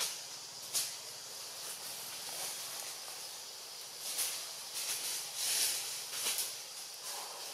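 Outdoor tree-canopy ambience: a steady high hiss with a few short rustles, one about a second in and several between four and six and a half seconds.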